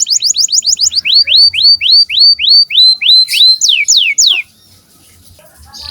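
Domestic canary singing: a run of quick repeated up-slurred whistles, about four a second, ending in three falling notes. It pauses for about a second and a half before a new trill starts near the end.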